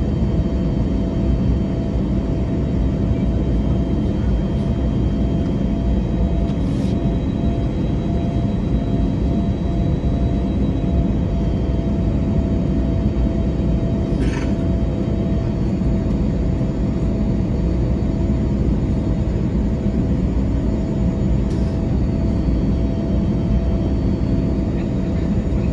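Steady cabin rumble of an Airbus A321neo in flight, heard over the wing: jet engine and airflow noise with a faint steady whine running through it. The engines are CFM LEAP-1A turbofans.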